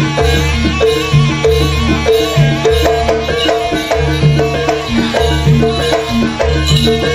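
Live jaranan dance accompaniment: a traditional Javanese percussion ensemble with drums, playing a steady, evenly repeating rhythmic pattern.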